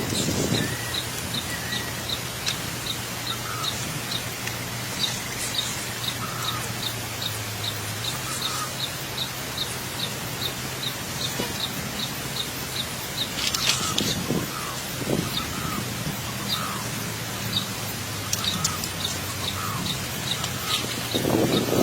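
Outdoor ambience: a short high chirp repeating evenly about twice a second, with scattered other calls over a low steady hum.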